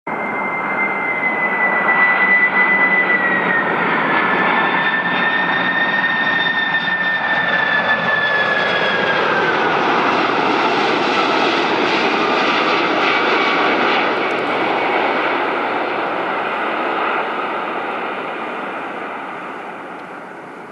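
Boeing 747-400 freighter's four jet engines passing on landing: loud jet noise with a high whine that drops in pitch twice as the aircraft goes by, then slowly fades.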